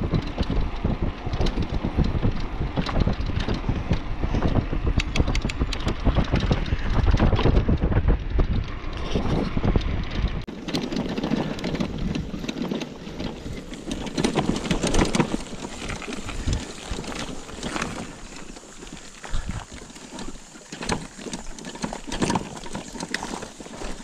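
Wind buffeting the microphone of a handlebar camera on a moving touring bicycle, a heavy rumbling rush. About ten seconds in it changes abruptly to tyres crunching and the bike rattling over a rough rocky dirt track, with many sharp clicks and knocks.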